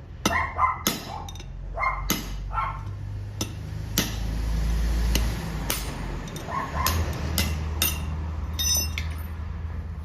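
Irregular sharp metal knocks and clinks from tools working a worn axle bearing loose on an electric tricycle, with a low hum swelling in the middle and a ringing clink near the end.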